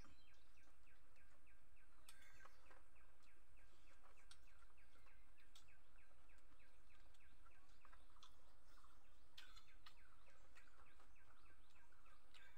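Quiet ambience: a steady low hum with faint, rapid chirping repeated several times a second, and a few soft clicks.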